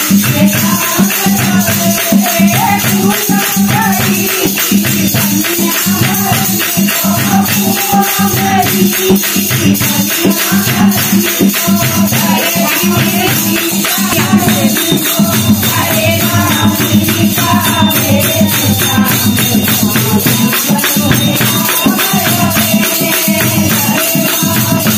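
Group of women singing a Hindi devotional bhajan (kirtan), with hand-clapping and jingling, rattling percussion keeping a steady beat.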